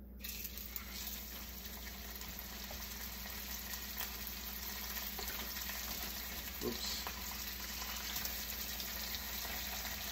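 Steak laid into a pan of oil heated to its smoke point: sizzling starts abruptly and carries on steadily, with fine crackles and pops of spattering fat.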